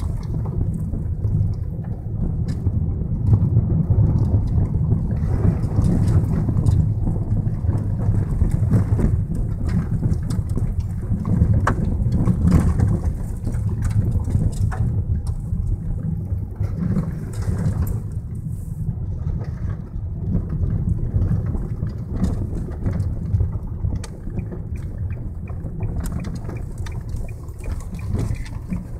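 Car driving slowly on a gravel track, heard from inside the cabin: a steady low rumble of engine and tyres with scattered sharp ticks.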